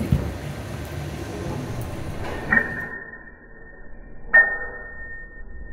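Two sharp metallic clinks from the pendulum impact rig of a steel-framed glass flood barrier, the second louder, each followed by a clear ringing note that hangs on.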